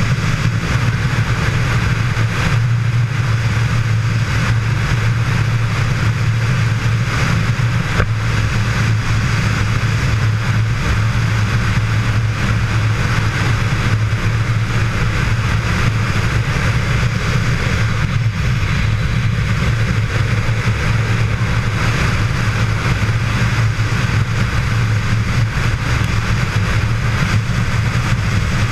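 Motorcycle riding at a steady highway cruising speed: a steady low engine and road drone, with wind rushing past the camera on top. There is no change in speed.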